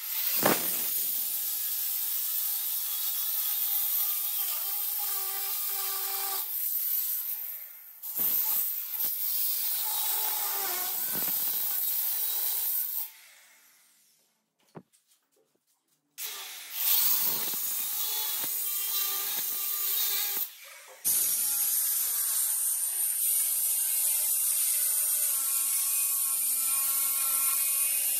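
Handheld electric marble cutter with a diamond blade cutting a granite countertop. It runs in several cuts with short stops between them, and goes nearly silent for a couple of seconds about halfway through.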